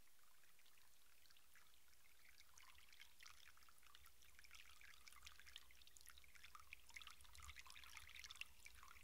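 Near silence: a faint low hum with scattered faint crackling ticks that grow a little busier over the seconds.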